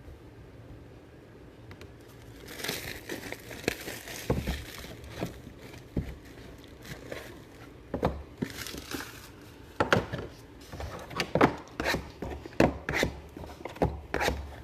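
Plastic wrap crinkling and tearing as a sealed box of trading cards is opened, with sharp snaps and taps. It starts about two and a half seconds in.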